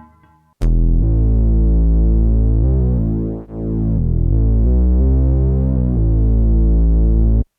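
Roland Boutique JD-08 synthesizer playing one sustained, thick, bass-heavy patch. It starts about half a second in, dips briefly around the middle and cuts off abruptly near the end.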